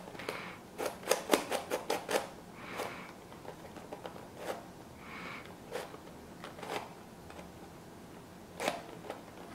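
Clicking and clacking of a hand-cast polyurethane-resin Icosaminx twisty puzzle being turned by hand: a quick run of turns about a second in, then single turns every second or so, with a couple of short scrapes between them.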